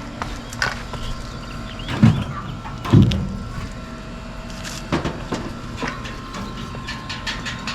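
A few scattered clunks and knocks, the loudest two about two and three seconds in, over a faint steady hum.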